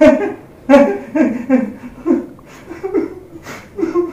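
A young man laughing in a string of short bursts, about two a second, the first ones loudest and the rest softer.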